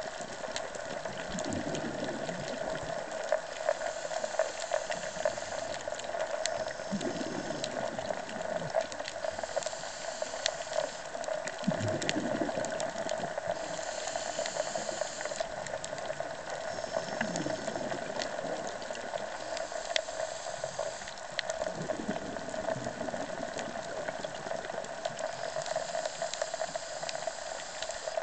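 Underwater sound of a scuba diver breathing through a regulator: a hiss on each inhale and a bubbling rush on each exhale, about every five seconds, over a steady hum and scattered sharp clicks.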